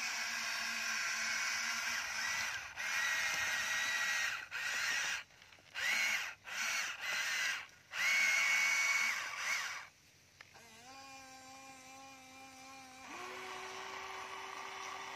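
Electric motors and gearboxes of a Huina radio-controlled toy excavator whining as the arm and bucket work, stopping and starting several times with short gaps. In the later part a steadier, lower humming motor tone takes over and steps up in pitch a couple of seconds before the end.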